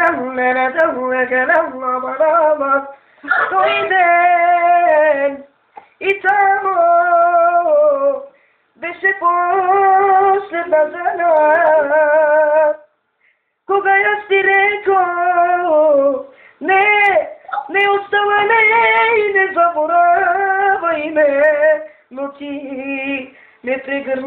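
A boy singing unaccompanied in a high voice, in phrases of a few seconds with short pauses between them, the pitch bending and wavering within the held notes.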